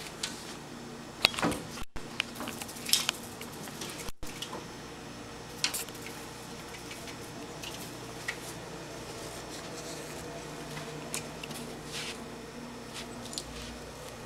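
A cat pawing and batting at a window while chasing a house fly: scattered sharp taps and knocks, a cluster of them in the first few seconds and a few more later, over a steady low hum.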